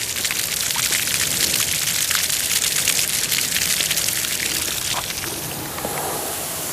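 Lawn irrigation sprinkler spraying, a steady hiss of water with fine pattering of droplets, easing after about five seconds. It is running during drizzle because the system's rain sensor is not working.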